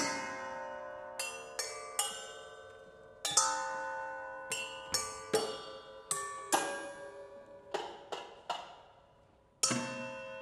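Metal kitchenware such as pots and bowls struck with mallets in a slow, sparse passage, each stroke ringing like a bell and dying away. The notes come about once a second at several different pitches, with a louder stroke near the end.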